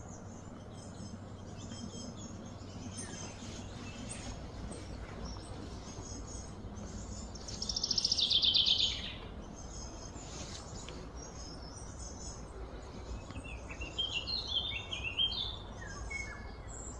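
Birds chirping and calling over steady low background noise. About eight seconds in comes a loud, fast trilling call, and near the end a run of short chirps that step down in pitch.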